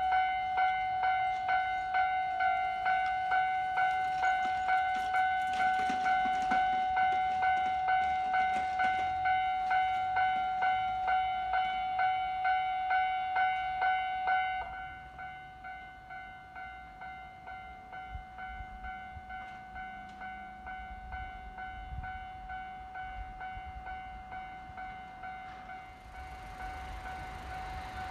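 Electronic warning bell of a Japanese railway level crossing starting up and ringing in a steady repeating pattern of about two strikes a second, then becoming noticeably quieter about halfway through and ringing on. Near the end the rising noise of an approaching train joins it.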